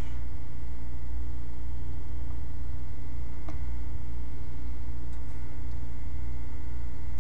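Steady electrical mains hum with a faint high whine above it, and a few faint clicks from a computer mouse near the middle.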